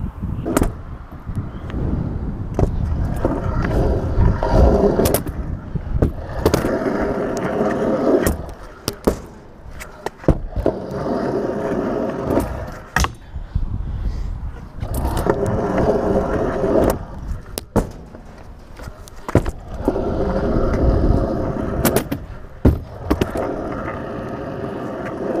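Scooter wheels rolling over rough concrete and ramp surfaces, a grinding rumble that swells and fades in stretches of a few seconds. Sharp clacks and knocks come between the stretches.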